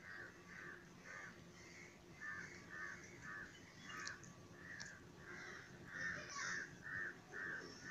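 A crow cawing over and over in a faint, steady series, about two calls a second.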